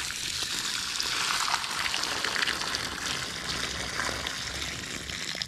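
Water running and splashing steadily, flush water from an engine's cooling system.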